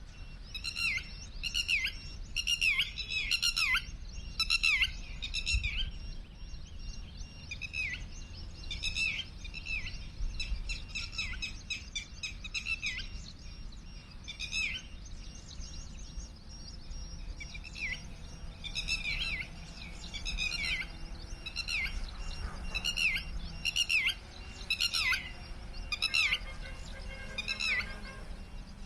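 Birds chirping: runs of short, quickly falling chirps repeated in bursts of several a second, coming and going throughout.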